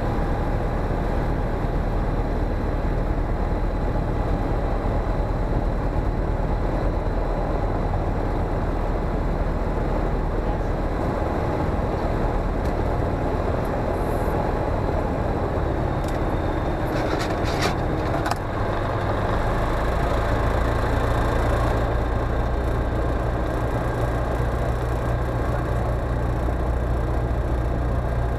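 Comco Ikarus C42C microlight's engine and propeller running steadily at low taxi power. A few sharp clicks come about two-thirds of the way in, and soon after the engine note shifts to a fuller, lower hum.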